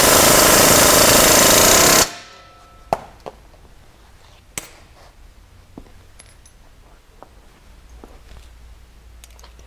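Pneumatic impact wrench hammering for about two seconds as it runs down a skid plate mounting bolt, then stopping abruptly. A few light clicks and knocks follow.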